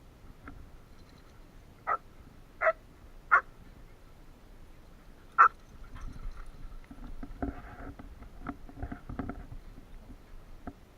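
Dogs playing: four short, sharp barks spread over the first half, followed by a few seconds of softer, rougher noise.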